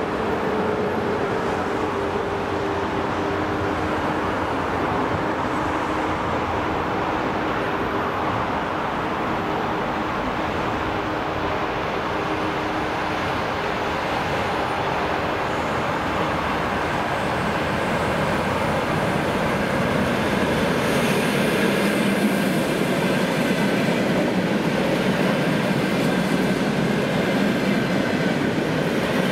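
ED4M electric multiple unit approaching and passing at speed: a continuous rush of wheels on rail that grows louder about two-thirds of the way through as the cars go by close.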